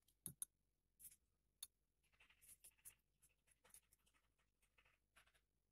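Faint spoon clicking and scraping against a bowl while stirring thick icing: a few sharp clicks, then a run of short scratchy scrapes.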